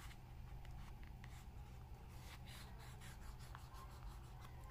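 Faint scratchy rustling and light ticks of a pull-up leather wallet being handled, flexed and rubbed by fingers, busiest about halfway through. A low steady hum sits underneath.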